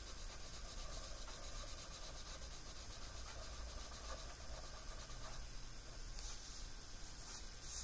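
Pencil scratching faintly on sketchbook paper in short strokes as strands of hair are drawn.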